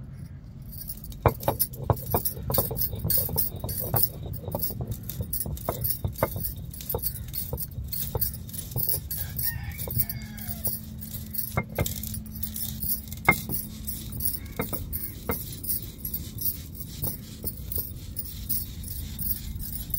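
Roasted fennel seeds and black pepper crushed on a stone ammi with a stone roller: a steady grinding rumble with irregular clicks as the roller rocks and the seeds crack, and bangles jangling on the grinding wrist.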